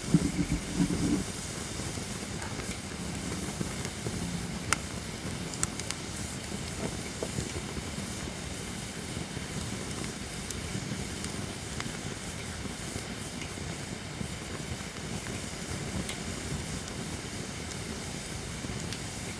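Holly-wood campfire burning with a steady hiss, broken by a few sharp crackles and pops about five and six seconds in. A louder low humming rumble fills the first second.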